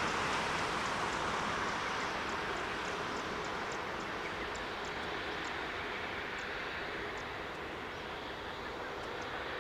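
Jet engine roar of an Airbus A380 on the runway or climbing out. It is a steady, rushing roar that eases slightly over the seconds, with faint, high-pitched chirps ticking over it through the first half.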